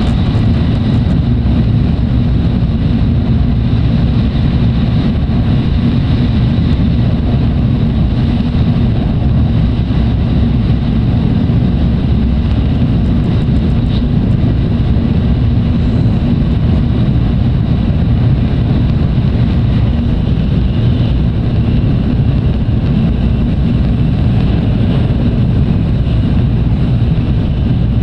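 Tokaido Shinkansen train running at speed, heard from inside the passenger car: a loud, steady low rumble with a faint high whine over it.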